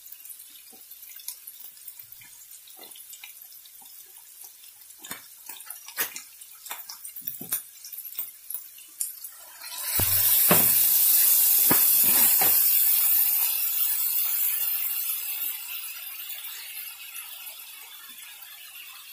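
Mutton chops frying in spiced oil in a pan: light scattered crackling, then about halfway through a sudden loud sizzle that stays strong for several seconds and slowly dies down as steam rises.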